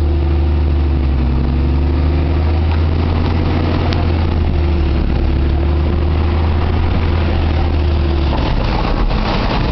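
A large engine idling with a loud, steady low hum. About eight seconds in the hum drops out and gives way to a rougher noise.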